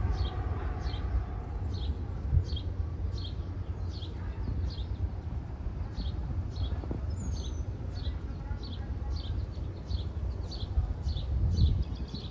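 Departing twin-engine jet airliner climbing away, a steady low rumble. Over it, a short high chirp repeats evenly about twice a second.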